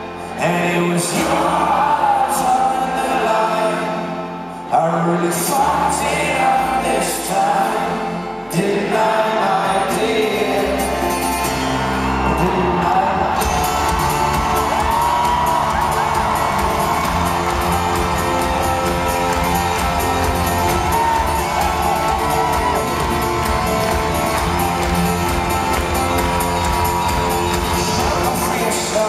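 Live folk-rock band with acoustic guitars and upright bass and a man singing, heard from among a whooping crowd in a large hall. The first half is sparse, breaking off briefly twice. About halfway through, the full band comes in with a fast, driving beat.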